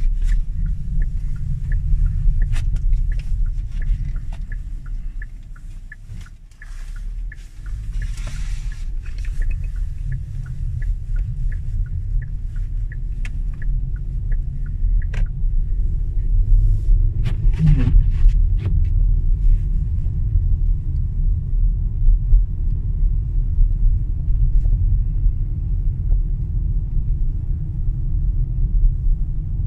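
Inside a car driving on snow-packed road: a steady low rumble of tyres and road noise that drops away for a couple of seconds about six seconds in, then comes back and holds. Scattered light clicks and ticks sound over it in the first half.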